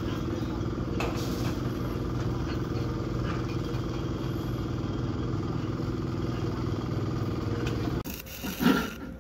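A small engine running steadily at a constant speed. About eight seconds in it cuts off abruptly, and a few short, louder, irregular sounds follow near the end.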